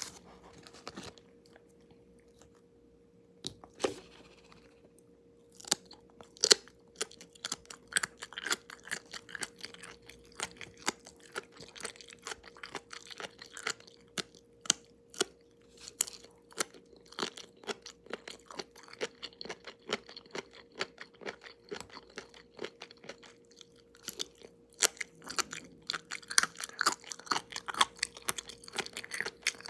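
Close-miked chewing of crunchy food, a dense run of crisp crunches and mouth clicks that starts about five seconds in after a few single bites. A faint steady hum sits underneath.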